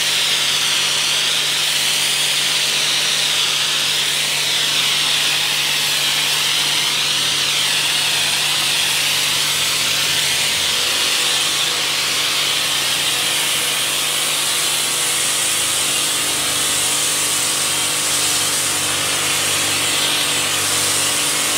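Electric pressure washer running with a foam cannon attachment, spraying snow foam onto a car: a loud, steady hiss of the spray over the washer's steady motor hum.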